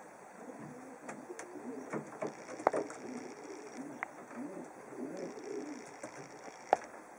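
Racing pigeons cooing, a low warbling coo that comes and goes, with a few sharp clicks; the two loudest clicks come about three seconds in and near the end.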